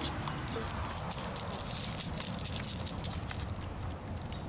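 A wet cast net being worked by hand as fish are picked out of its mesh: quick, crisp rustling and clicking, busiest in the middle and thinning out near the end.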